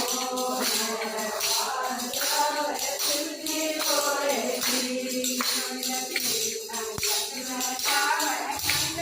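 A Haryanvi devotional bhajan: a woman singing with jingling hand percussion, like a tambourine, keeping a steady beat.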